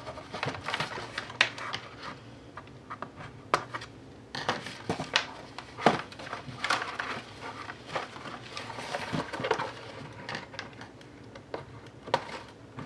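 Doll packaging being handled: a stiff clear plastic tray and a taped cardboard insert crinkling, rustling and clicking in irregular bursts as the doll's jacket is taken out.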